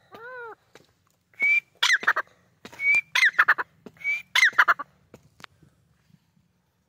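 White francolin (white teetar) calling. A soft arched call comes first, then three loud calls about a second and a half apart, each a short high whistle followed by a quick run of falling notes.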